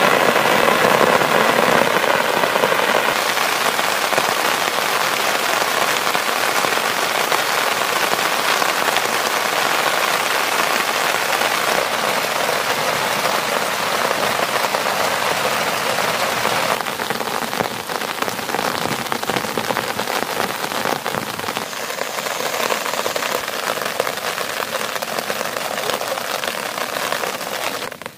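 Steady heavy rain falling on tent flysheets and a tarp, a little quieter in the last third.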